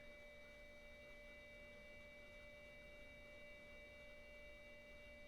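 Near silence with a faint steady electronic whine of several high, unchanging tones.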